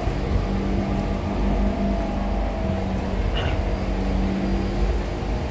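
Siemens C651 metro train running, heard from inside the passenger car: a steady low rumble of wheels on track with the traction motors' steady whine over it.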